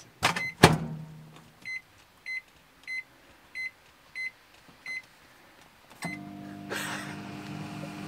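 Sharp microwave oven's keypad beeping six times, about two-thirds of a second apart, as the cooking time is keyed in, after two knocks near the start. About six seconds in, the oven starts cooking with a steady hum and whir.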